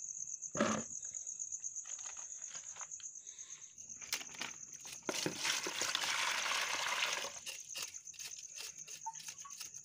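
Crickets trilling steadily at a high pitch, with a knife scraping scales off a small fish for a couple of seconds in the middle, among a few light knocks and clicks.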